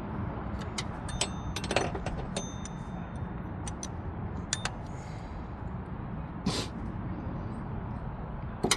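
Irregular metallic clicks and clinks of hand tools against the engine's bolt and tensioner bracket while a new belt tensioner is bolted in, some with a short ringing tone. One short scraping burst comes about six and a half seconds in, over a steady low background rumble.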